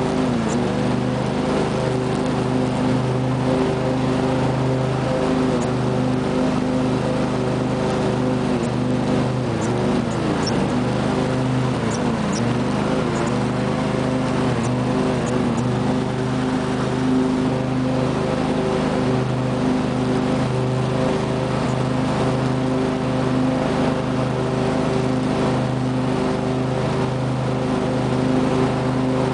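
24 hp Briggs & Stratton V-twin engine of a 2005 Husqvarna lawn tractor running steadily while mowing, its pitch sagging slightly a few times around the middle as it takes load.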